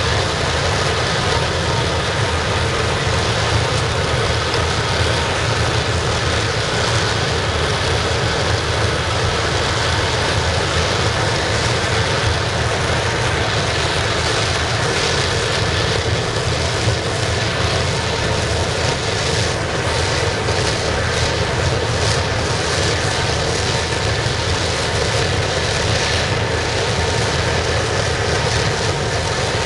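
Waste-oil burner of a scrap-melting furnace running steadily: a constant rush of flame and blown air.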